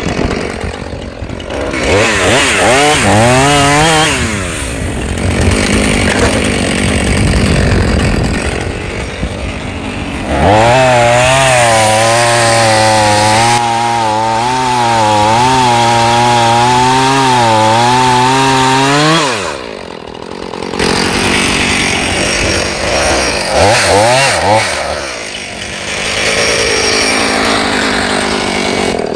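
Husqvarna two-stroke chainsaw revving in short bursts, then held at full throttle for about nine seconds as it cuts into the base of a tree trunk. It drops back sharply about two-thirds of the way in and revs again a few times near the end.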